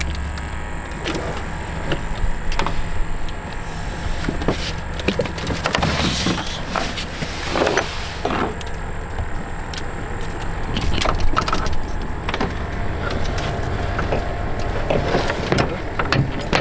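An engine running steadily at low speed, with scattered knocks and clatter from gear being handled.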